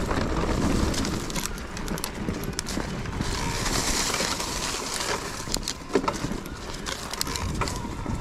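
Mountain bike riding over rough trail: irregular knocks and rattles from the tyres, chain and frame, with a longer hiss about four seconds in.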